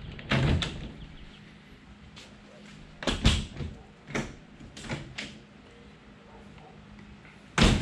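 Aluminium camper entry door (Tern Overland Wildlands) being shut and latched, with a loud clunk a little over three seconds in. Its handle and latch click a few times as it is unlatched and opened, then a loud knock near the end as it shuts again.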